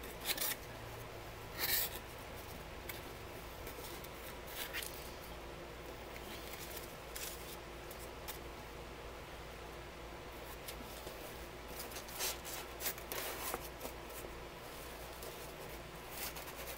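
Cardboard box being opened by hand: scattered short scrapes and rustles of the flaps and the packing inside, with a busier stretch of handling near the end.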